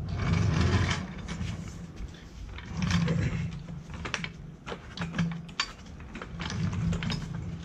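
Trolley floor jack being rolled over concrete on its wheels, rattling and giving irregular clicks and knocks as it is pushed into place.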